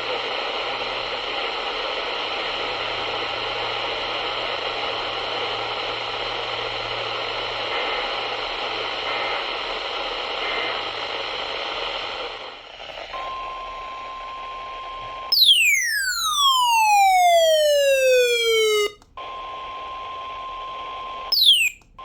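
Radio receiver hissing with static for about twelve seconds. Then a steady beep tone comes on, broken by a loud falling pitch sweep lasting about three and a half seconds. The tone then returns, and a second, shorter falling sweep comes near the end.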